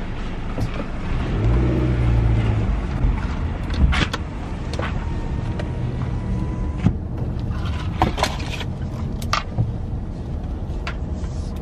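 Low, steady hum of a car heard from inside the cabin, swelling for about a second near the start. A few short clicks and knocks come through the middle.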